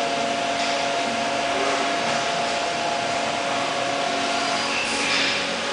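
Hot-wire TIG welding station running: a steady hiss with a hum of a few steady tones underneath.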